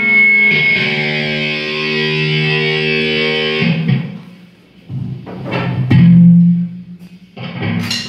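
Live rock band's electric guitar holding a chord that rings for about four seconds and dies away, then a few more struck chords with cymbal crashes near the end.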